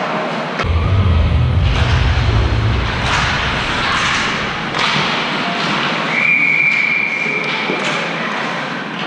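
Ice hockey play: thuds and knocks of puck, sticks and players against the boards over steady rink noise. A referee's whistle is blown once, held for about two seconds, starting about six seconds in.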